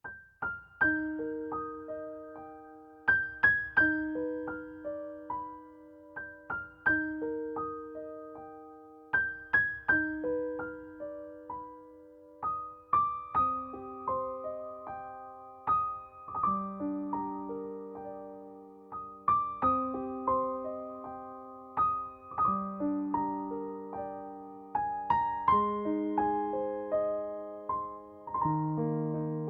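Background music: a solo piano melody over slow chords, each note struck and fading.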